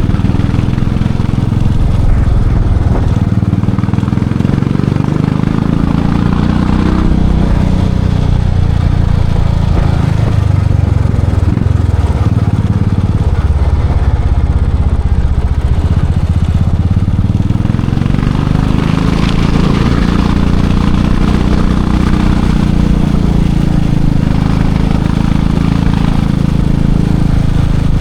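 Royal Enfield Classic 500 single-cylinder engine and exhaust running under way. Its pitch rises and falls twice as the bike speeds up and eases off.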